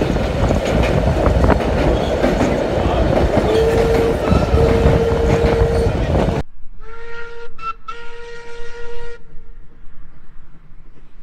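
Narrow-gauge steam train running loudly, its whistle sounding in two blasts over the running noise. The running noise stops abruptly and a clear steam-locomotive whistle blows one blast of about two and a half seconds, broken twice briefly near its start.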